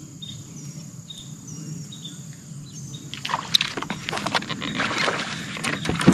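Insects drone steadily with short repeating chirps. From about halfway, a growing clatter of sharp knocks and splashy noises sets in as a hooked bass is fought beside a bass boat.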